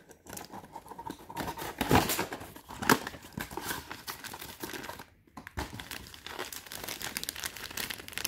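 Cardboard packaging being cut open with a utility knife and unpacked, then clear plastic bags of parts crinkling and rustling as they are handled: irregular rustles and small clicks, with a short pause about five seconds in.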